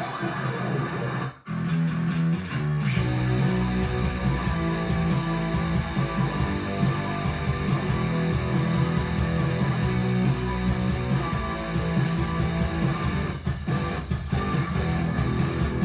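Guitar-led rock music with electric and bass guitar, played back through a Fosi Audio ZA3 amplifier and speakers. It breaks off briefly about a second and a half in, then comes back fuller, with a heavier low end.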